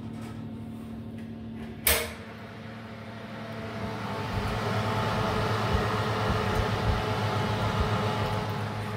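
Electric oven running on its maximum setting with a steady hum. A sharp click about two seconds in, then the oven door is opened and a loud rushing noise comes from the hot oven.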